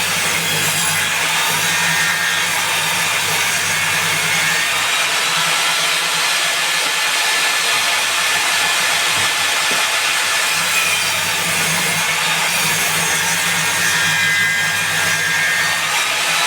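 Table saw running and cutting wood: a loud, steady blade noise over a low motor hum.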